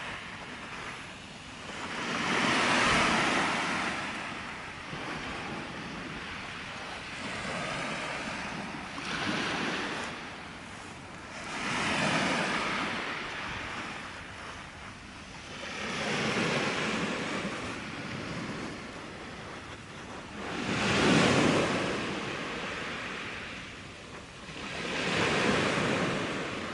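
Small sea waves breaking and washing up a pebble beach, the hiss swelling and fading roughly every four or five seconds.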